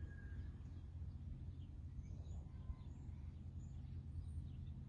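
Low steady background rumble with a few faint, short bird chirps.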